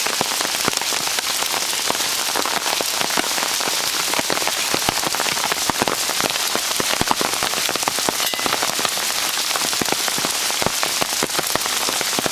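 Hailstorm: hail and rain pelting hard surfaces in a dense, steady patter of sharp ticks.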